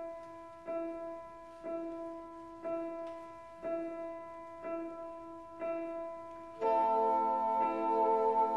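Background piano music: the same soft chord is struck about once a second, then a fuller, louder chord comes in about two-thirds of the way through.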